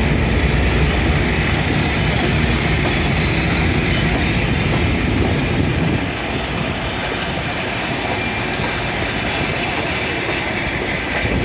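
Passenger coaches of a departing diesel-hauled train rolling past, the wheels running over the rails with a steady rumble and clatter. The sound drops slightly about six seconds in.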